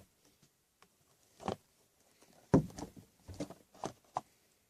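A small cardboard trading-card box being handled: a few short taps and rustles, scattered, with a quick cluster of them in the second half.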